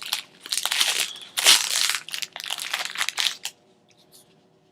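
Foil booster pack wrapper crinkling and crumpling in several bursts as the pack is opened, stopping suddenly about three and a half seconds in.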